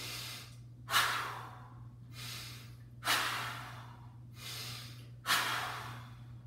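A man's forceful breaths, three sharp rushes of air about two seconds apart, each trailing off, paced as he would breathe through pressing reps.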